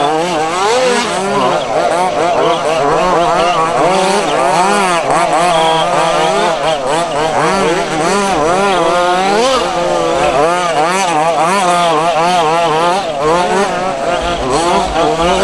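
Several 1:5 scale gas-powered off-road buggies racing at once, their small two-stroke engines revving up and down over and over as the cars accelerate and brake around the track.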